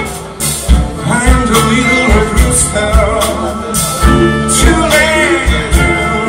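Live blues-rock band playing a slow blues: a steady drum beat, bass, electric guitar and singing.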